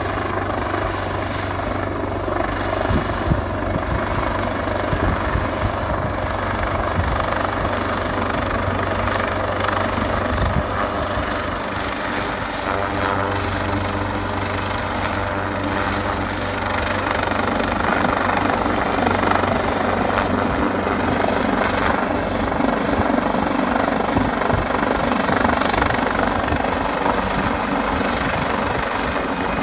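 Coastguard search-and-rescue helicopter's rotors and engines running loud and steady, a constant low drone over a dense roar.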